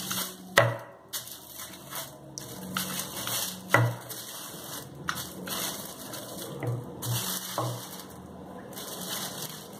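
Wooden rolling pin rolling a ball of dough flat on butter paper over a stone counter: the paper rustles and scrapes under the pin, with a sharp knock of the pin about half a second in and another just before four seconds.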